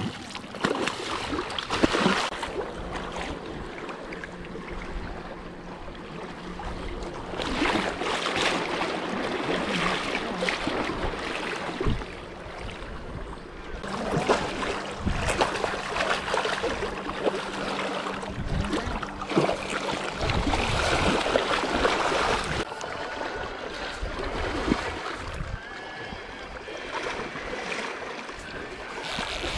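Hooked sockeye salmon thrashing and splashing at the river surface as it is played and netted, over the rush of moving river water. A low steady hum comes and goes underneath.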